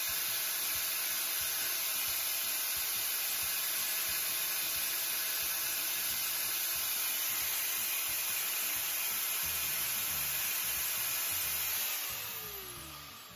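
Angle grinder with a thin cutting disc running at a steady high speed, then switched off about twelve seconds in and winding down with a falling whine.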